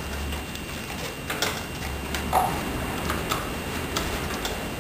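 Irregular light clicks and knocks as a motorcycle battery cover is handled and worked off its mounts, over a low steady hum.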